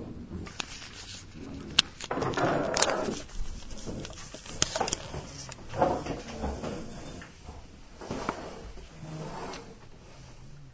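Scattered sharp clicks and knocks, with a few short bursts of rustling.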